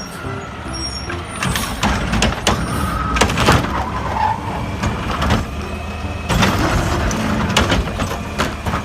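Steady low truck-like engine rumble, with repeated sharp clicks and knocks of plastic toy vehicles being handled.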